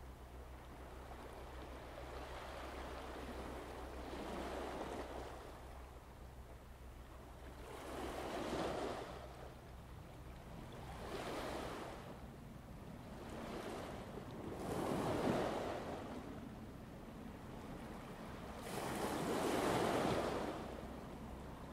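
Waves washing and breaking, each swelling up and falling away about every three to four seconds, over a steady low hum.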